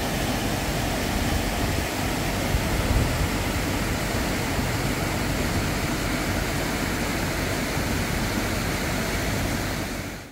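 Torrent of storm floodwater rushing and churning across the beach into the sea: a steady rushing noise with a low rumble underneath. It fades out just before the end.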